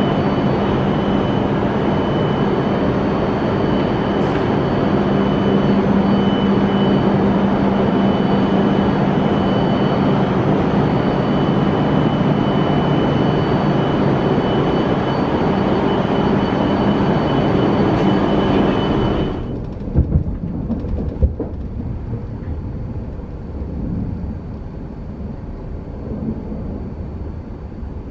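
Steady hum and noise with a high, constant whine beside a stopped Shinkansen bullet train at the platform. About 19 seconds in it cuts off abruptly to a quieter, duller cabin rumble with a couple of sharp knocks.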